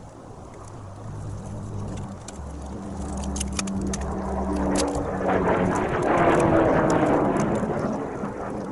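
A passing motor vehicle's engine: a steady hum that grows louder over about six seconds, peaks, then fades away.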